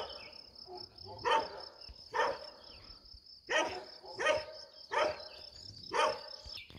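A tied-up dog barking repeatedly, about seven sharp barks roughly a second apart.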